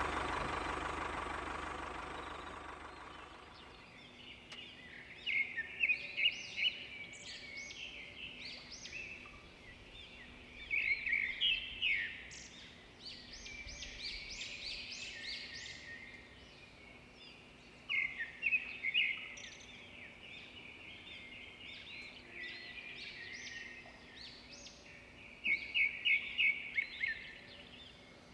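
Birds chirping, in quick runs of short high chirps that come about four times, with quieter calls between. A louder sound fades out over the first few seconds.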